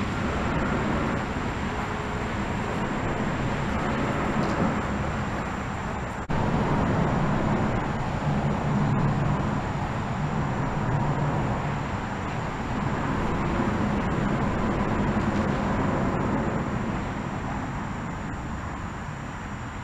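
Road traffic passing on the bridge overhead: a steady low rumble that swells and eases as vehicles go by, stepping up suddenly about six seconds in.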